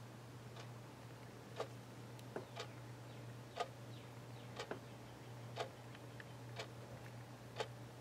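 Sharp quartz analog clock ticking faintly, about one tick a second, over a low steady hum.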